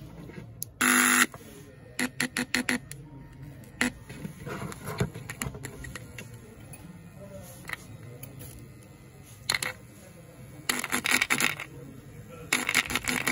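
Small loudspeaker driven by a homemade 5-volt amplifier board, giving a loud short buzz about a second in, then a run of quick crackles, and two longer bursts of crackling near the end, as the audio jack and wires are handled; a low steady hum sits underneath.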